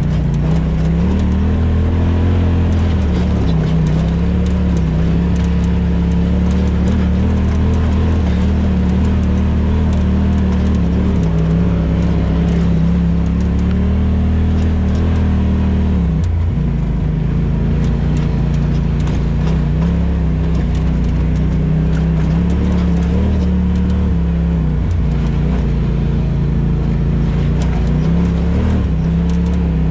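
Off-road vehicle engine running steadily on a trail ride, its pitch rising and easing with the throttle and dropping sharply about halfway through before picking up again. A low rumble runs underneath, with scattered clicks and knocks.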